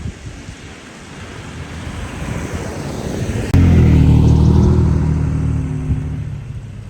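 Motor vehicle driving on a snowy road: tyre and road noise swells, then a loud, steady engine drone cuts in suddenly about halfway through and fades away over a few seconds.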